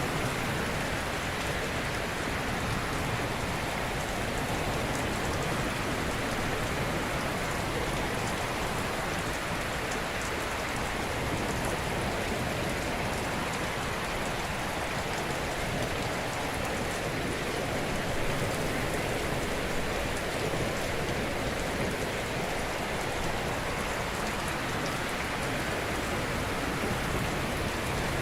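Ocean waves washing gently onto a shore, a steady rushing hiss of surf with no single loud crash standing out.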